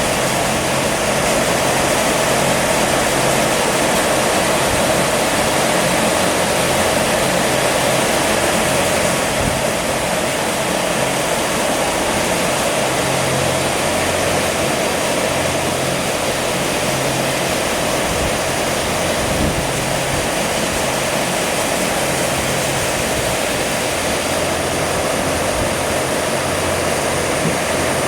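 Large poultry-house exhaust fans running steadily, a loud even whoosh of moving air with a low motor hum beneath it.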